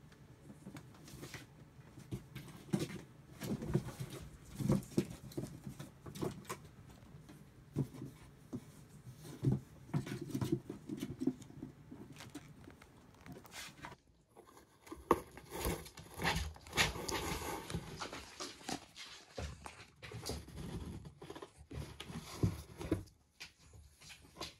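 Kittens scrambling on and in cardboard boxes: scattered, irregular light taps, scratches and rustles of paws and claws on cardboard.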